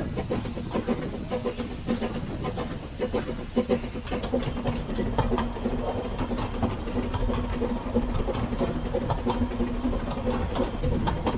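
Small narrow-gauge saddle-tank steam locomotive running along the line: steam hissing, strongest in the first few seconds, over a steady rumble and rattle of wheels clicking on the track.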